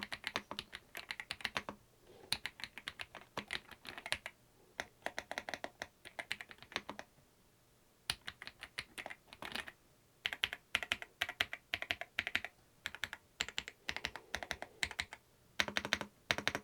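Typing on an AJAZZ AK870 mechanical keyboard: quick runs of key clicks in bursts with short pauses, including a pause about halfway through, then faster, denser typing.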